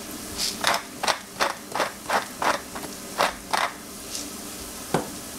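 A cooking utensil worked against a pan in about ten quick, even strokes, roughly three a second, then a single click about five seconds in.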